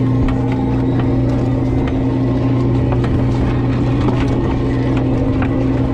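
A fishing boat's engine running with a steady low drone. Scattered light clicks and clatters come from Dungeness crab shells being handled and sorted on the deck table.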